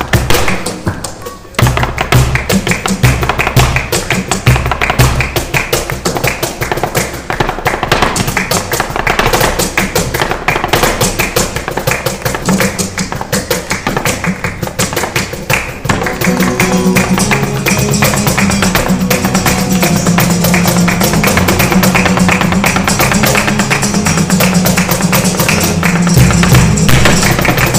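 Live flamenco: a dancer's rapid percussive footwork striking a small dance board, accompanied by acoustic guitar. The music drops briefly near the start, and about halfway through steadier held notes come in under the footwork.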